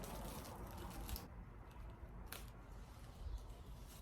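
Rustling and tearing of a plant's shipping wrap as it is unwrapped, strongest for about the first second, then quieter handling with a single click about two seconds in.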